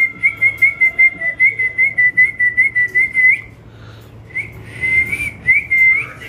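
A quick run of short, high whistled notes, about five a second, each flicking up in pitch at its end; they break off about three and a half seconds in, then a few more follow near the end.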